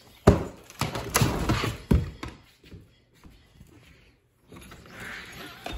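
A door's handle and latch being worked: a sharp thunk, then a second or two of clicks and rattles, a quiet pause, and a soft hiss of noise near the end.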